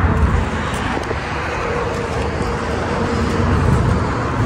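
Steady motor-vehicle traffic noise: a low rumble with a faint hum that holds for a second or two midway.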